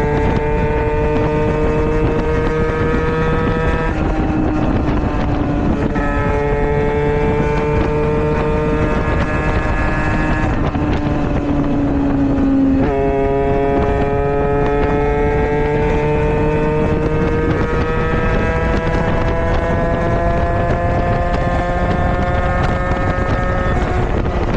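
Small motorcycle engine, the Aprilia RS's, running on the move. Its pitch climbs slowly and drops back several times as it changes gear, the biggest drop about thirteen seconds in, under heavy wind noise on the microphone.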